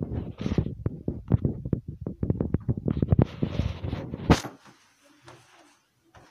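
Wind buffeting a phone's microphone outdoors: irregular low rumbling thumps, cut off by a sharp click a little over four seconds in.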